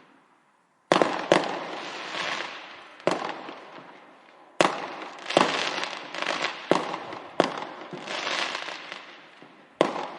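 Fireworks bursting: about nine sharp bangs at uneven intervals, starting about a second in. Each bang trails off in a rush of noise that fades over a second or so.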